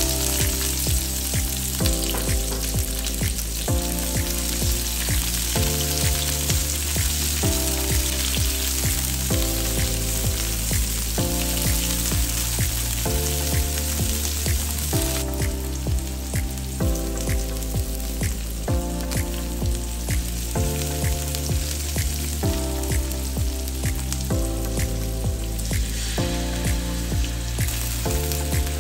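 Sliced onions sizzling in hot oil in a wok, with a spatula scraping and stirring them; the sizzle is heavier for the first half and eases about halfway through. Background music with a steady repeating chord pattern plays underneath.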